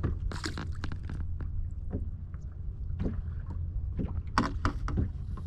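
Wind rumbling on the microphone aboard a small fishing boat on open water. There is a short hiss about half a second in, and a few light knocks and clicks from handling on the boat.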